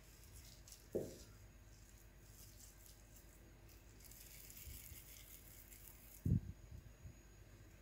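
Hands rolling a ball of crumbly peanut-and-coconut cookie dough between the palms, a faint rustling about halfway through, with two soft thumps, one about a second in and a louder one about six seconds in.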